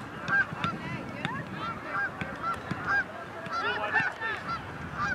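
Geese honking, many short calls repeated and overlapping, as from a flock, crowding together about four seconds in.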